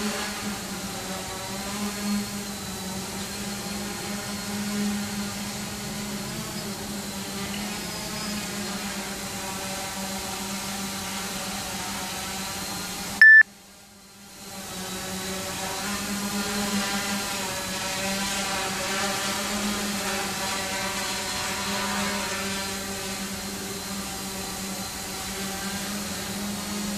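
Quanum Venture quadcopter's motors and propellers humming in hover, the pitch wavering as the throttle changes. About halfway through, a short, loud high beep sounds, the hum drops out for about a second, then fades back in.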